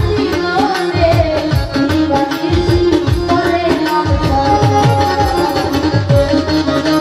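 A woman singing folk song over live hand-drum accompaniment, the low drum strokes quick and bending downward in pitch.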